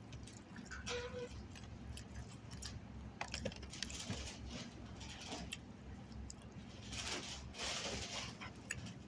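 Faint eating and handling noises: scattered small clicks and a few soft rustles, the longest about seven seconds in, over a low steady hum.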